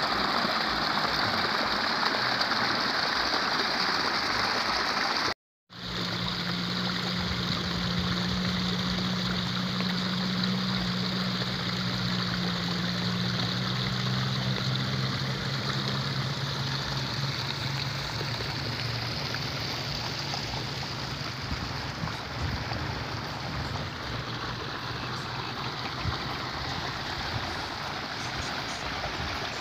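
Irrigation water trickling and flowing through a small channel between rice paddies, a steady rushing wash. After a brief dropout about five seconds in, a low steady engine hum joins it for about ten seconds, then fades.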